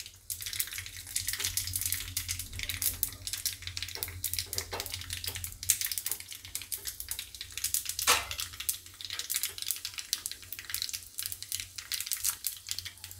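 Hot ghee sizzling and crackling in a small tempering pan, with dried red chillies, mustard seeds and lentils frying in it; a sharper pop about eight seconds in.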